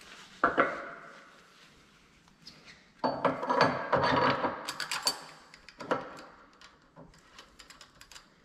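Metal tool parts of a forming machine being handled and refitted: a sharp clank about half a second in, a stretch of scraping and rattling from about three to five seconds, another knock near six seconds, then light clicks as a hex key tightens a screw.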